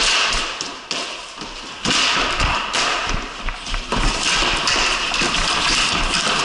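Ball-hockey sticks tapping on a concrete floor and knocking a small plastic ball: a run of sharp taps and thuds.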